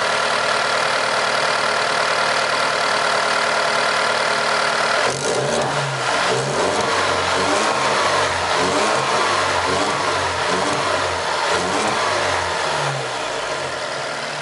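Alfa Romeo Giulia's turbocharged engine running through a newly fitted aftermarket air intake. It idles steadily, then from about five seconds in it is revved repeatedly, its pitch rising and falling.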